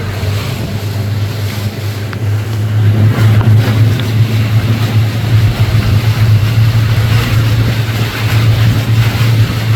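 Pontoon boat's motor running steadily under way, a constant low hum, with wind and water rushing past.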